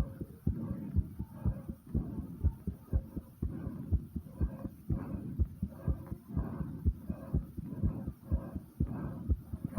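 A person's heartbeat, fast and pounding hard: a steady run of deep thumps, about two a second.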